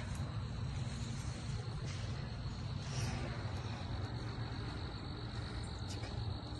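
Crickets chirping in a steady high trill, over a low steady rumble.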